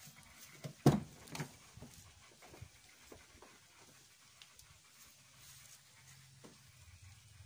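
SsangYong Rexton driver's door being opened: a loud clack of the latch about a second in, followed by a couple of lighter knocks, then faint handling sounds.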